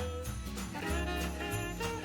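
Background music: an upbeat tune with bright jingling percussion on a steady beat over a bass line.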